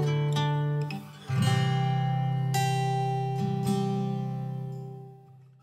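Background music on acoustic guitar: a held chord stops about a second in, then a new chord is struck and left to ring, fading away near the end.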